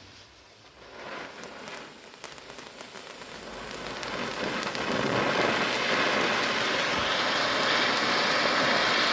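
Two firework fountains (Lesli Vegas Volcano cones) spraying sparks with a steady rushing hiss. It is faint at first and grows louder over the first five seconds as the fountains burn up to full height, then holds.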